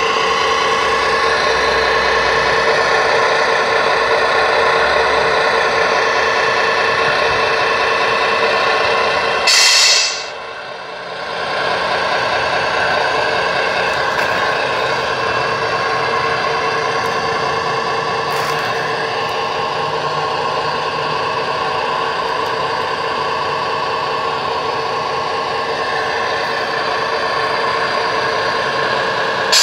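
Simulated Scania truck diesel engine running steadily from the scale model's electronic sound unit, with a short, sharp air-brake hiss about ten seconds in, after which the engine sound briefly drops before coming back up.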